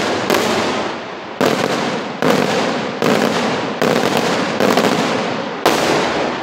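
Daytime aerial fireworks shells bursting overhead. About seven loud bangs come roughly one a second, each trailing off in a long echoing rumble.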